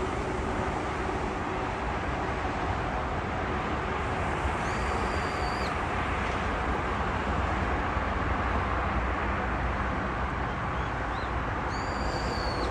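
Steady rush of distant expressway traffic. A high held whistle sounds twice over it, once about five seconds in and again near the end, with a couple of short rising chirps just before the second.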